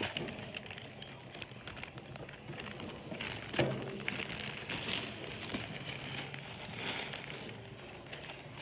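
Soft rustling and scratching with scattered small clicks, and a light bump about three and a half seconds in.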